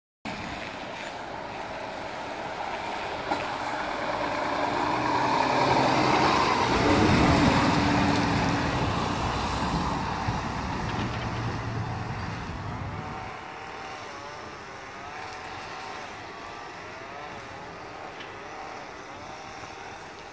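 Scania G410 lorry's six-cylinder diesel engine pulling a loaded trailer past at low speed. It grows louder as the lorry passes close by, then fades as it moves away across the yard.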